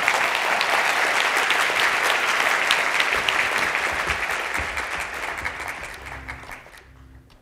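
Conference audience applauding at the end of a talk: dense clapping that fades away over the last couple of seconds and then cuts off suddenly.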